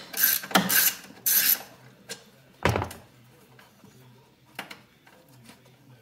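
Hand ratchet with a 5/16 in (8 mm) socket driving a self-tapping screw into sheet-metal firewall: three short ratcheting strokes in the first second and a half, then a single knock just under three seconds in, then a few faint ticks.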